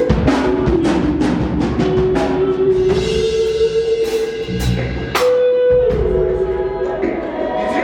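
Music with a drum kit playing a beat under long held notes and guitar.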